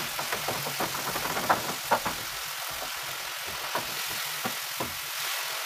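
Food sizzling in a pan on the stove: a steady hiss with small, irregular pops and crackles.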